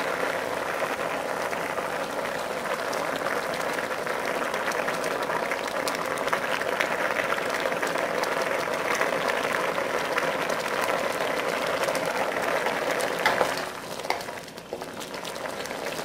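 Chicken broth at a rolling boil in an electric wok, a steady dense bubbling and crackling, with beaten egg being drizzled in. The sound drops suddenly to a quieter level about 14 seconds in.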